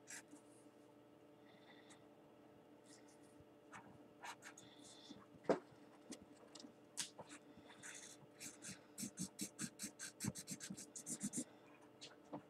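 Felt-tip marker scratching across paper as a drawing is coloured in with short strokes, speeding into a quick back-and-forth run near the end. One sharper tap about halfway through.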